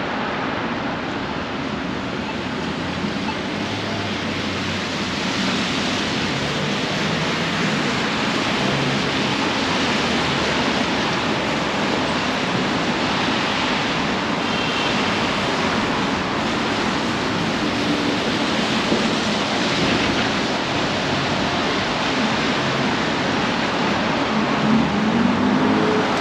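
Steady hiss of rain and traffic on wet city streets, growing a little louder about five seconds in.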